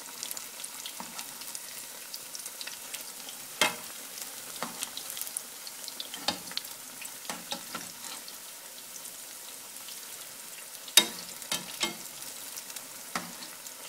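Potato, spinach and onion pakoras deep-frying in hot oil on a medium flame, a steady sizzle. A slotted spoon turns them in the metal pot, with a few sharp clicks and knocks, the loudest about four seconds in and again near eleven seconds.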